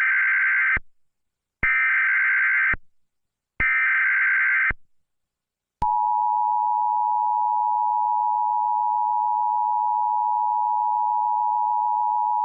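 Emergency Alert System alert tones: three buzzing digital SAME header bursts of about a second each, spaced about two seconds apart. About six seconds in, the steady two-tone EAS attention signal starts and holds. These are the tones that open an emergency alert broadcast.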